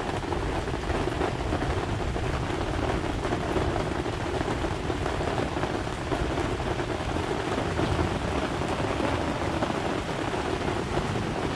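Steady heavy rain falling, an even hiss with no breaks or distinct hits, during a thunderstorm.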